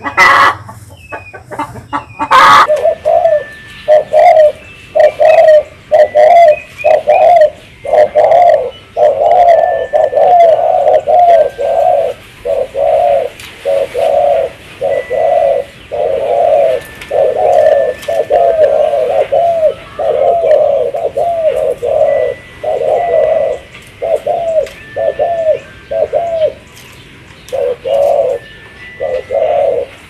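Spotted dove cooing: a long series of short, low, hooked coo notes, about two a second with brief gaps. Two sharp knocks in the first couple of seconds, just before the cooing begins.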